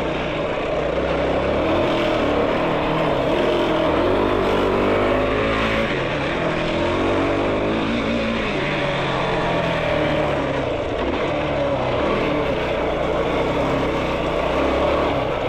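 Yamaha YFZ450R sport quad's single-cylinder four-stroke engine running as the quad is ridden, the revs rising and falling.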